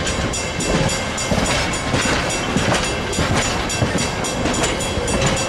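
Bilevel passenger coaches rolling past: a steady rumble of steel wheels on rail, with a quick, uneven run of clicks and clacks as the wheels cross rail joints.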